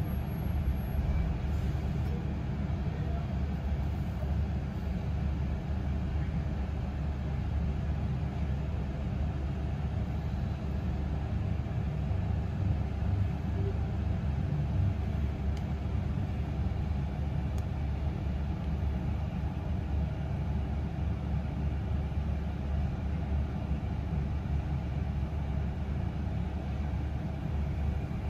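Steady low rumble of a double-decker bus's engine and running gear, heard from inside on the upper deck while the bus stands in traffic.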